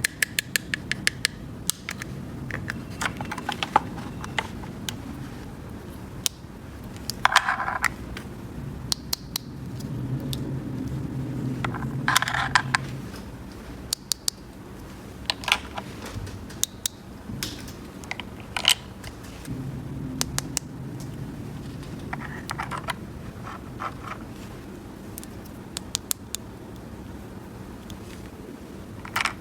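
Small plastic toy pieces handled and set down: repeated sharp clicks and taps with a few short scrapes.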